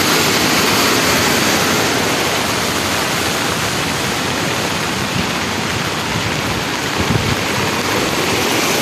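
Muddy floodwater rushing down a steep hillside gully after a heavy downpour, a loud steady rush of water. A few low bumps about seven seconds in.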